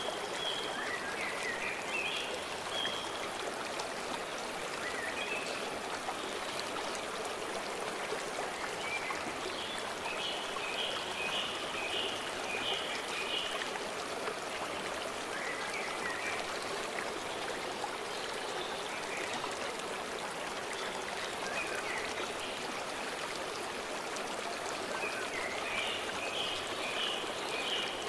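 Stream water flowing steadily, with a songbird singing short phrases of quick repeated high notes every few seconds.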